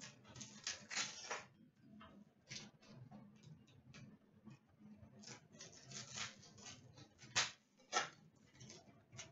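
Trading-card packaging and cards being handled: faint, irregular rustles, taps and clicks, with two sharper clicks near the end.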